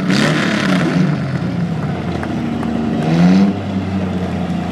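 Several demolition derby car engines idling and revving, their pitch rising and falling, with a louder rev about three seconds in.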